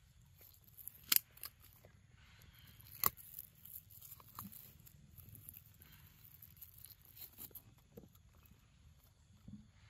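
Scattered light clicks and crackles of macaques climbing on a tree trunk and branches, with two sharper snaps about one and three seconds in.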